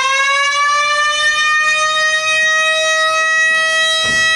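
Warning siren sounding one steady, loud, high tone, its pitch settling in the first second after winding up. It is held on by a control that is kept pressed in.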